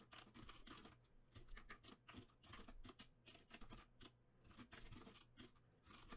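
Faint, quick, irregular clicking of computer keyboard keys being typed, over a low steady hum.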